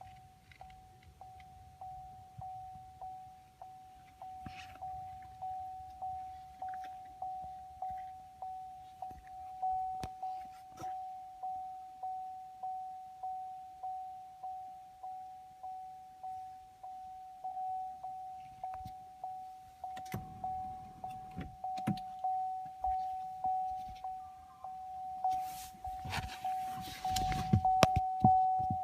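Chevrolet Camaro SS's warning chime dinging over and over at one steady pitch, a little over once a second. There are bursts of rustling noise about two-thirds of the way in and a louder one near the end.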